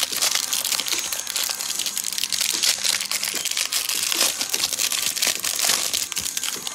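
Plastic wrapper of a Mosaic basketball card hanger pack crinkling and tearing as it is ripped open and handled, a steady run of small crackles.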